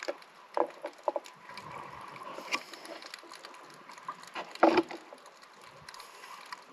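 Underwater sound through a camera housing: a scuba diver's exhaled regulator bubbles in several short bursts, the loudest just before five seconds in, over a faint steady tone.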